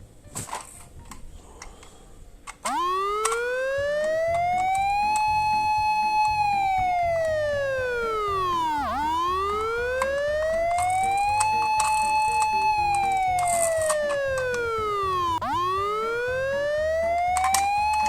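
Emergency-vehicle wail siren that starts suddenly about two and a half seconds in. It slowly rises, holds its high note, then falls, one cycle about every six and a half seconds. Before it starts there are only a few faint clicks, and faint background music with a beat runs underneath.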